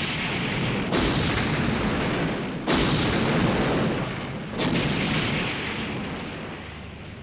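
Rumbling explosion sound effect from the 1984 Godzilla film: a dense blast that swells again with three fresh explosions in the first five seconds, then dies slowly away.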